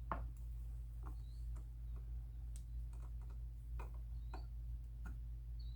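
Faint, irregular small clicks of a tiny screw and screwdriver against the parts of a folding knife as the screw is fitted into its hole, over a steady low hum.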